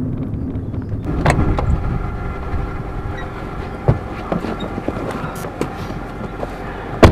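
Car engine idling with a steady low rumble while people climb into the back seat, with shuffling and several knocks against the seat and door. A loud thump comes near the end.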